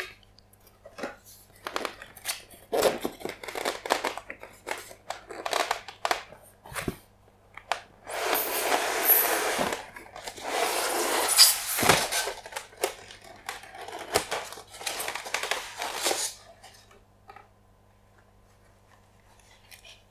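Packaging of a boxed diecast model being handled: cardboard box flaps and a polystyrene foam tray knocked and scraped, then long stretches of loud rustling and scraping about eight to twelve seconds in as the foam tray and white wrapping are pulled out. The handling thins out after about sixteen seconds.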